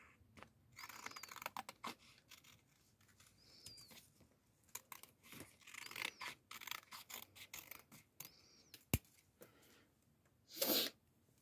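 Scissors cutting a glossy photo card in a series of short, quiet snips, with the card being handled between cuts. A sharp click comes about nine seconds in, and a brief, louder paper rustle shortly before the end.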